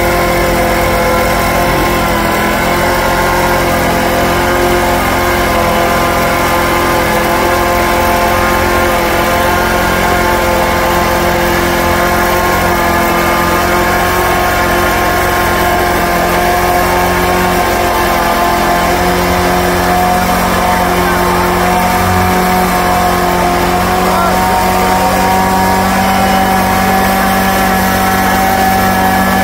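Petrol lawn mower engine running steadily, its pitch creeping slightly higher over time.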